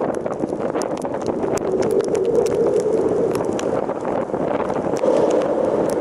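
Strong storm wind of 30–35 mph buffeting the camera microphone in a steady, loud rush, dotted with many short sharp ticks of wind-driven rain hitting the camera.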